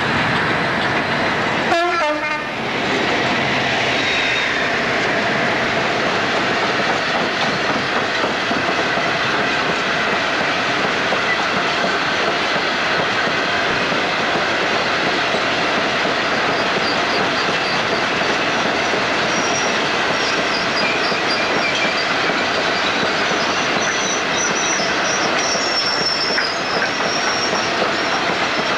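A long merry-go-round coal train of hopper wagons, hauled by a Class 56 diesel, rolling past close by at speed: a loud, continuous rumble and clatter of wheels over rail joints. There is a sharp burst about two seconds in, and faint high-pitched wheel squeal comes and goes in the second half.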